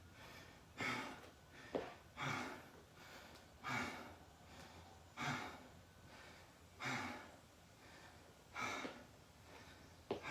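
A person breathing hard after a set of burpees, with deep, regular breaths about once every second and a half as they recover from the exertion.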